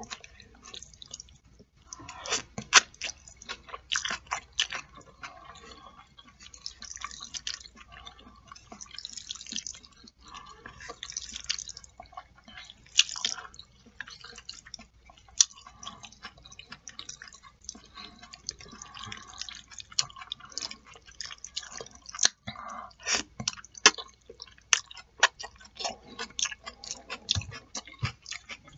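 A person chewing a mouthful of jajangmyeon (black bean sauce noodles) close to the microphone, with many small mouth clicks and smacks throughout.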